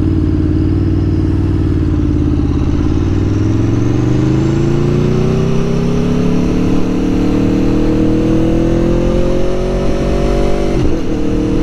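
2021 Aprilia Tuono V4 Factory's V4 engine pulling in gear, its pitch rising slowly for several seconds as the bike accelerates. Near the end it drops abruptly at a gear change.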